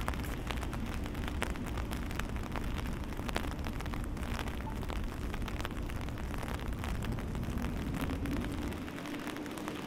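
Raindrops pattering and ticking on an umbrella close overhead, over a low rumble that drops away near the end. A faint steady hum comes in near the end.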